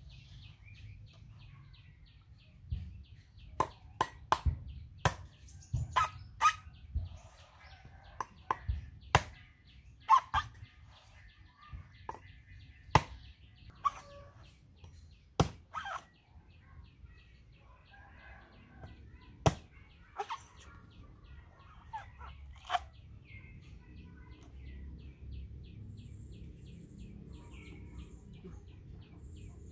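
A cleaver chopping into the husk of a green coconut: about two dozen sharp, irregular strikes that stop a few seconds before the end.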